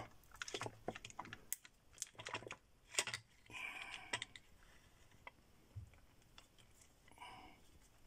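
Faint, scattered clicks and light knocks of a wire cutter against the plastic chassis of a toy RC car as it is set on the battery wires, with two short rustles of handling, one in the middle and one near the end.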